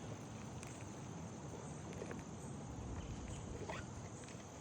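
Quiet outdoor background with a steady high insect drone, crossed by a few faint light clicks.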